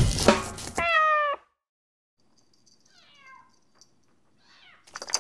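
Knife chopping on a cutting board for about the first second, then a kitten meowing: one loud meow with a slightly falling pitch, followed by two fainter meows, one falling and one rising. Near the end a knock and a high jingling start.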